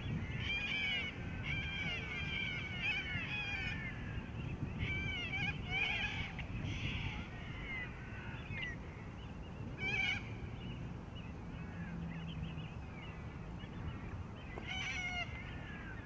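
Birds calling in repeated bursts of quick, arching notes, busiest in the first seven seconds, with short bursts about ten and fifteen seconds in, over a steady low rumble.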